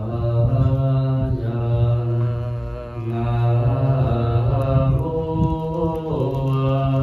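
A Buddhist monk chanting into a microphone: a slow, melodic recitation on long held notes that step up and down in pitch, with a brief break for breath about three seconds in.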